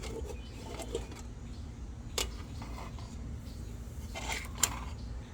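A knocked-down bird feeder being handled, giving light rustles and clinks with two sharp clicks, one about two seconds in and one near the end, over a steady low rumble.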